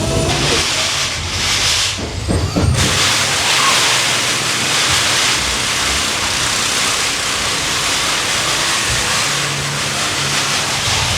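Loud, steady hissing noise, like rushing air, with a short break about two seconds in.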